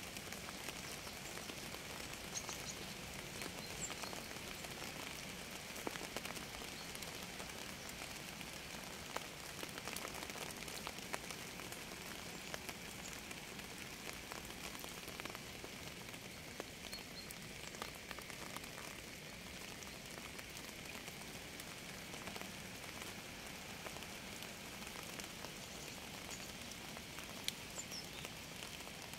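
Steady rain, an even hiss dotted with many small ticks of individual drops.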